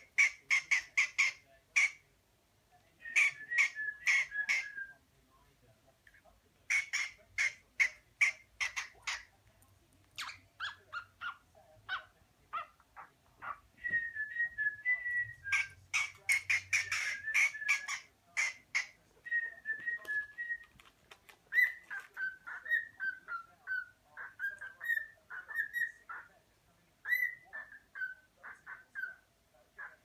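Cockatiel singing: quick runs of sharp chirps broken by short pauses, then, about halfway through, a string of short whistled notes, many dipping slightly in pitch.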